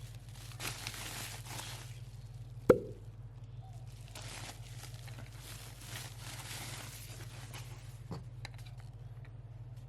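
Packaging being handled as a new pressure washer gun is unwrapped: two spells of plastic rustling, a sharp knock about two and a half seconds in and a lighter one near the end, over a steady low hum.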